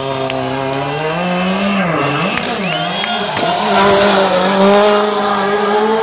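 Rally car engine revving, its revs climbing and then swinging up and down, then held high, while the tyres spin and squeal on tarmac as the car slides in circles. The tyre noise peaks about four seconds in.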